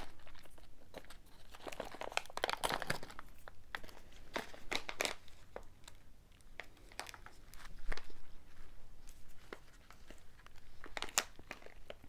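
Plastic snack-mix wrapper crinkling and tearing in irregular fits as it is struggled open, with a few louder crackles along the way.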